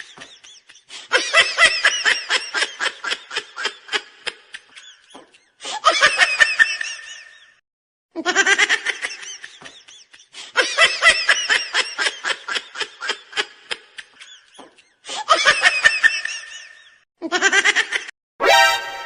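High-pitched laughter in repeated fits, each a rapid run of short pulses that tails off, with the same-looking fits coming round again several times. Near the end a brief bright sound rich in overtones cuts in.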